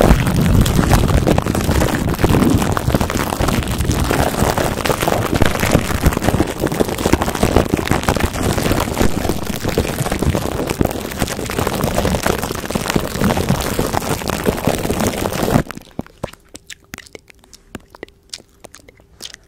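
Plastic wrap stretched over a microphone being rubbed and squeezed by fingers close to the mic: a loud, dense crinkling crackle. It stops suddenly about sixteen seconds in, leaving faint scattered clicks.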